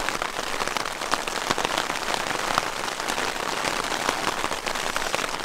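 Hard rain falling on a tent's fabric wall, heard from inside the tent: a dense, steady patter of drop hits.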